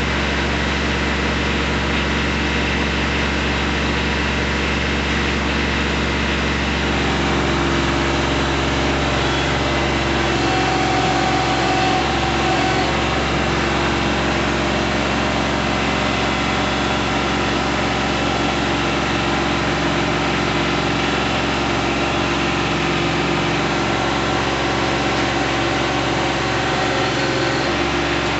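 Kubota B2320 tractor's three-cylinder diesel engine running steadily. Its note shifts about seven seconds in and again near the end.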